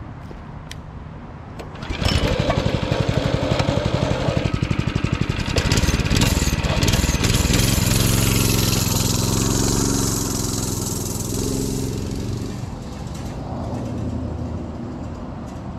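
Predator 212cc single-cylinder four-stroke engine on a mini bike comes in loud about two seconds in and runs at high revs as the bike pulls away, then fades as the bike rides off.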